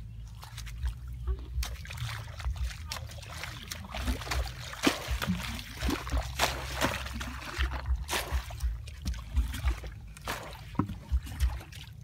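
Hoe chopping and scraping in wet mud and shallow muddy water, with irregular splashes and squelches.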